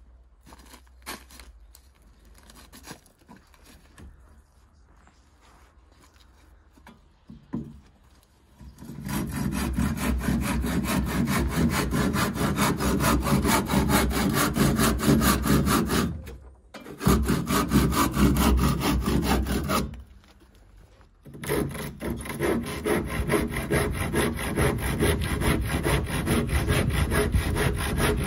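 Hand saw cutting through wooden gate boards with rapid back-and-forth strokes, starting about nine seconds in and stopping briefly twice; before that only a few faint knocks. The cut runs down the middle of the boarding to split the gate into its two leaves.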